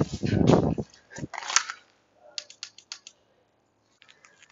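Quick clicks, taps and scuffs of a person moving fast in gear on brick pavers, with a heavy low thump in the first second. The sounds come in short clusters, then stop for about a second before fainter taps return near the end.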